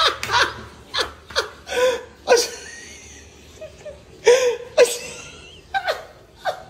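A person laughing in a string of short chuckles, with brief pauses between them.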